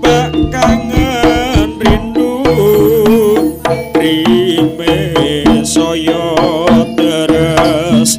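Live Javanese jaranan gamelan music: kendang barrel drums beating fast, busy patterns over gong and metallophone tones, with a wavering lead melody on top.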